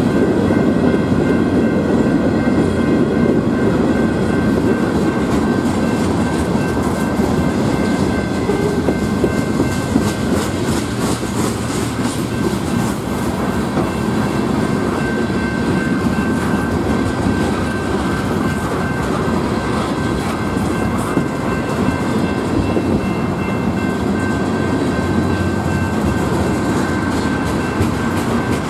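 Freight train cars rolling past at speed: a steady, loud rumble of steel wheels on rail, with the wheels clicking over the rail joints. A steady high tone runs underneath.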